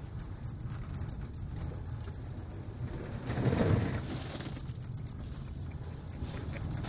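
Steady road and engine rumble inside a car driving on a slushy, thawing winter road. About three seconds in, the car hits a slush puddle and throws slush and muddy water over the windshield, a loud splash lasting about a second.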